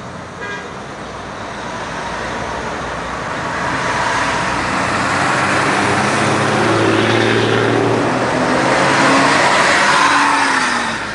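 Intercity buses and a loaded cargo truck passing close by, their diesel engines running under tyre and road noise that builds to its loudest through the middle and later part. A short horn toot sounds about half a second in.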